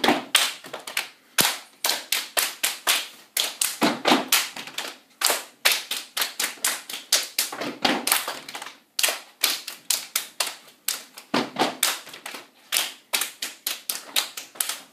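A group of girls step dancing: rhythmic hand claps, slaps on the body and foot stomps on a hard floor, in quick patterns broken by short pauses.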